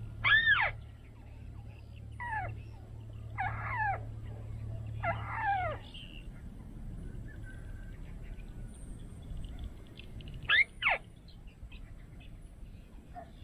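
A bird calling: short arched notes that rise and then fall in pitch, four spread over the first half and a quick pair near the end, over a low steady hum that stops about halfway.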